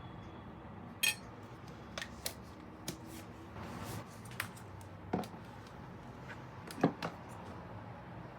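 Dishes and cutlery clinking and knocking in a string of separate hits, the loudest about a second in and again near seven seconds, with a short swish of movement around four seconds.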